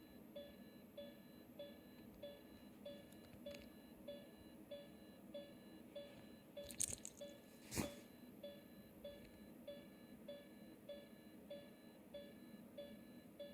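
Heart monitor (ECG) beeping: a short, even beep about every 0.6 seconds, roughly 100 beats a minute. A few sharp clicks come just past the middle, the loudest a little later than the rest.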